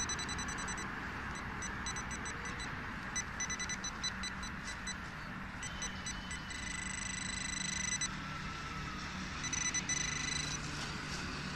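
Handheld metal-detecting pinpointer probed into a cut plug of soil, beeping in rapid high pulses that run into a steady tone for about a second and a half past the middle, then pulse again: it is signalling metal inside the soil plug. A steady low rumble sits beneath.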